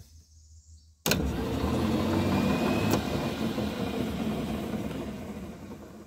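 A solenoid clicks in about a second in, and the 1985 Club Car's electric drive motor runs at full speed, spinning the jacked-up wheels with a steady running noise and a faint rising whine. There is a second sharp click near three seconds in, and the sound gradually fades toward the end. The top speed engaging shows the solenoid contacts are good.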